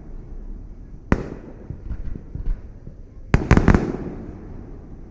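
Aerial fireworks bursting: a single sharp bang about a second in, then a quick volley of several bangs about three and a half seconds in, each followed by a rumbling echo.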